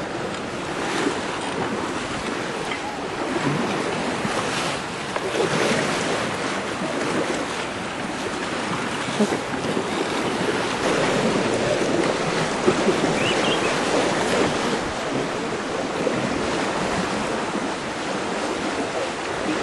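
Water splashing and sloshing continuously as an elephant wades through a river, swelling and easing irregularly, with wind on the microphone.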